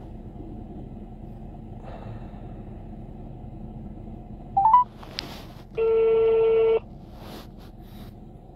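Outgoing phone call ringing out through a phone's speaker: a short rising run of tones, then one ring of the ringback tone, a steady one-second hum, about six seconds in, over a low steady background rumble.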